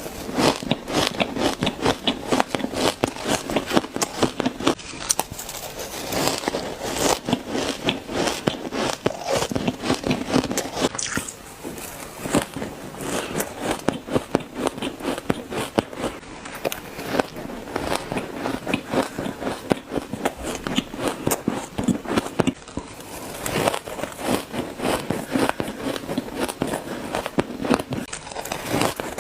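Shaved ice being bitten and chewed by the spoonful: a continuous run of rapid, dense crunching and crackling.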